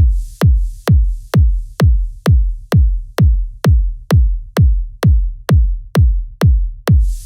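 Minimal techno intro: a drum-machine kick drum on every beat at about 130 beats a minute, each kick dropping quickly in pitch. A high hiss between the kicks fades out over the first few seconds, leaving the bare kick, and comes back right at the end.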